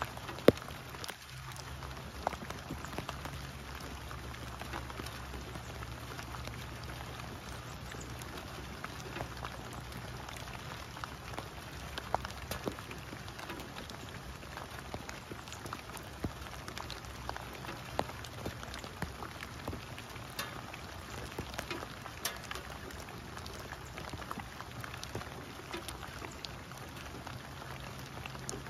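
Steady rain falling on wet leaves and standing water, with many separate drops ticking close by and one sharper tap about half a second in. A faint low hum runs underneath.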